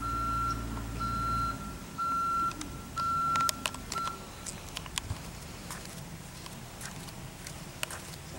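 A vehicle's reversing alarm beeping at a steady single pitch, about once a second, five times, over a low engine hum that stops after about a second and a half. Faint scattered clicks follow.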